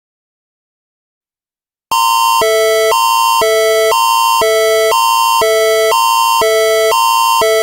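Canadian Alerting Attention Signal, the Alert Ready (National Public Alerting System) warning tone, starting about two seconds in. A higher chord and a lower chord alternate every half second, loud and steady, announcing that an emergency alert is about to be read.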